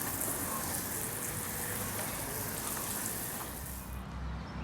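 Cleaning solution spraying from a 12-volt pump sprayer through a wide fan-tip nozzle, a steady hiss of spray landing on the concrete, cutting off suddenly near the end.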